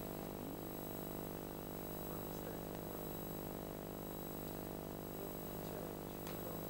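Steady low hum, with a few faint, brief sounds over it.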